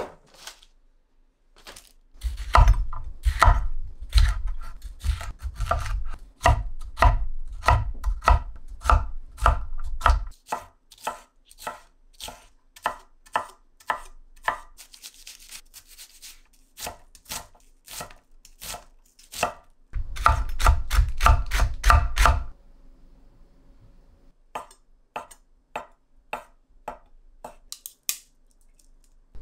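Kitchen knife chopping on a cutting board in quick, even strokes, about three to four a second. The strokes come in two runs of heavy thumps on the board with lighter cuts between them, and a few scattered cuts near the end.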